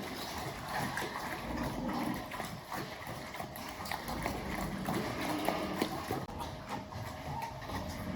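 Pigs in their pen, with many irregular clicks and knocks.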